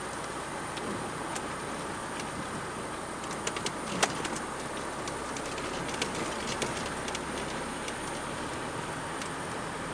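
Steady road and engine noise of a moving car, with a scatter of sharp clicks or knocks, the loudest near the middle.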